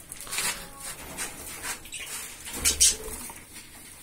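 Cockatiel chicks giving raspy, hissing begging calls in short irregular bursts while being handled, the loudest burst nearly three seconds in.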